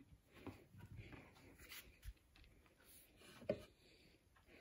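Near silence, with faint handling noises and one small clack about three and a half seconds in, as of glassware being shifted on a wooden table.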